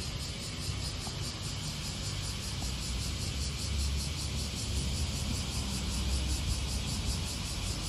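Outdoor ambience: a steady low rumble of distant traffic, with insects chirping in a fast, even pulse high above it.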